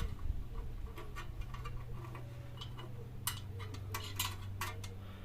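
Scattered light metallic clicks and taps from hand tools and screws being handled while a motorcycle exhaust heat shield is refitted, over a low steady hum.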